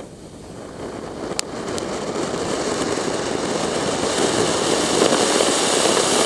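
Neelam colour koti ground-fountain firework spraying sparks: a rushing hiss that swells over the first few seconds and then holds steady, with two sharp cracks about a second and a half in.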